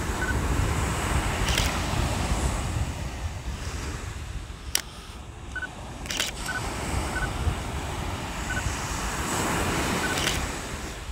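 Ocean surf breaking and washing up a sandy beach, swelling and easing, with wind rumbling on the microphone. A couple of sharp clicks come about five and six and a half seconds in, and a few faint short chirps are scattered through.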